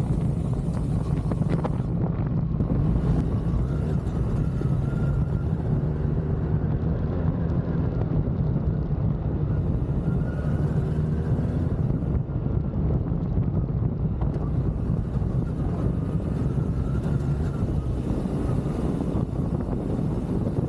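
Motorcycle engine running steadily while under way, with wind rushing over the microphone in gusts that come and go.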